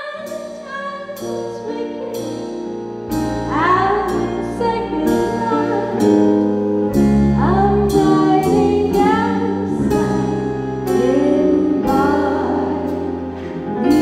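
A female vocalist sings a slow ballad through a microphone, her voice wavering in vibrato across several phrases. She is backed by a band and small orchestra with strings, flute, brass, drums and keyboards.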